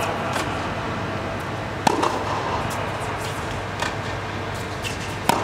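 Tennis rally: four racket-on-ball strikes about every one and a half to two seconds, alternately fainter from the far end of the court and louder close by, over a steady low hum.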